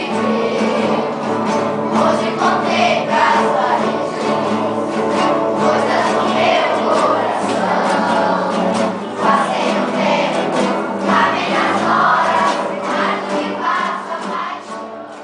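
A song sung by a group of voices, like a choir, with instrumental accompaniment. It fades out near the end.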